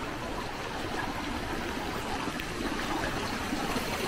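Shallow water running steadily across and along a paved lane, a continuous trickling rush.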